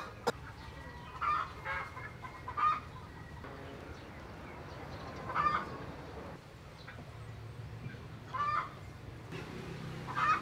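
Chickens clucking: about six short calls spread a few seconds apart, over a low steady hum.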